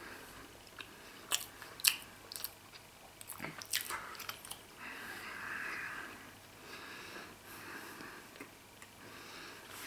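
A person biting off and chewing mouthfuls of Emmentaler cheese: several short sharp mouth clicks in the first four seconds, then softer steady chewing noise.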